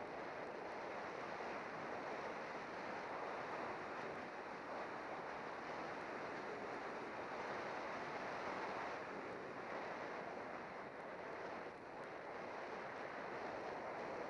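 Steady rushing wind over a bicycle-mounted camera's microphone during a fast road descent, with no engine or voice in it.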